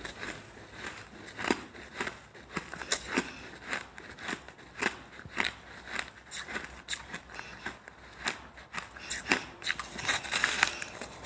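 Crunching bites into balls of frozen shaved ice: a dense, irregular run of sharp crackling crunches, thickest near the end.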